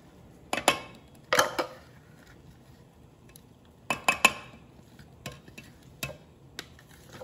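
Spatula scraping and knocking ground paste out of a plastic food processor bowl into a steel pot: sharp knocks in small clusters, the loudest about a second in and again about four seconds in, with lighter taps after.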